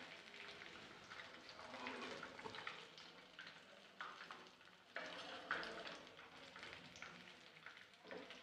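Faint sizzle of paneer pakodas deep-frying in hot oil, with a few light knocks of a slotted steel spoon in the pan about four and five seconds in.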